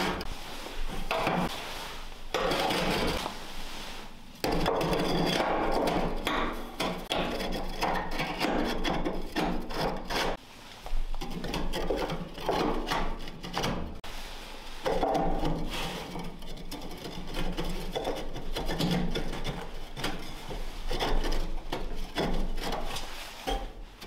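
Firebricks being slid and scraped into place in a wood stove's firebox, rough brick rubbing against brick and the steel stove body, with frequent short knocks as they settle and a few brief pauses.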